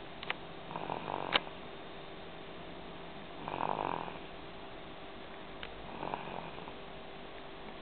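Slow, rhythmic snoring: three snores about two and a half seconds apart. A few sharp clicks are heard, the loudest about a second and a half in.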